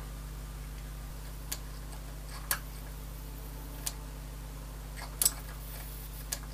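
Steady low electrical hum from the small high-voltage arc generator (a 15,000-volt step-up converter) running, with a handful of separate sharp clicks. The loudest clicks are a quick double click a little after five seconds in.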